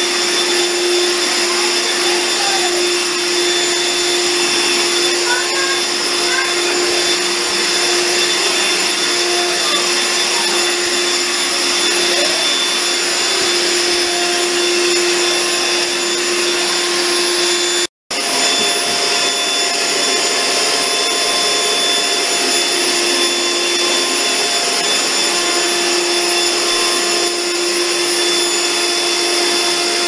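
Small handheld vacuum cleaner running steadily with a constant whine as it is moved over a rug. The sound breaks off for an instant about eighteen seconds in.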